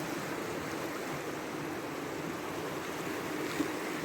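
Creek water rushing steadily over a crossing, running strong after recent flooding.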